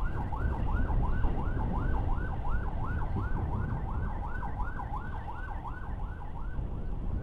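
Emergency vehicle siren in a fast yelp, sweeping up and down about three times a second, over the low wind and road rumble of a moving motorcycle.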